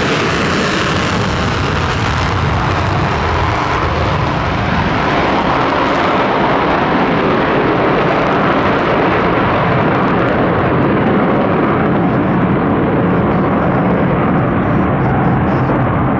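Loud, steady jet-engine noise from Su-35S fighters taking off and climbing away in formation, with a sharper hiss in the first couple of seconds.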